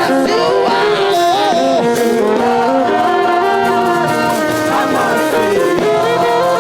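Live gospel choir music: voices holding and sliding between long notes over instrumental accompaniment, without clear words.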